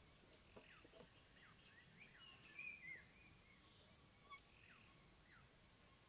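Faint wild bird chirps: short, falling calls repeating throughout, with a slightly louder twittering phrase about halfway through.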